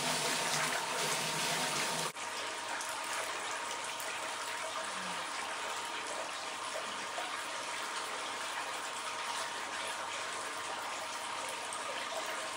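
Hot spring water pouring and splashing steadily into an open-air bath, a continuous rushing of water that drops slightly in level about two seconds in.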